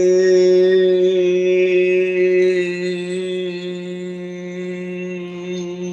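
A woman's voice holding one long, steady low note, toned on the exhale as part of a breathing practice. It is a little softer in the second half.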